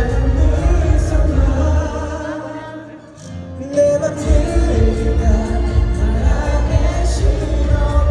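Live pop ballad sung by a male singer over an amplified band or backing track, heard through the venue's PA. The bass drops out and the music thins for a moment about two to three seconds in, then the full arrangement comes back in about four seconds in.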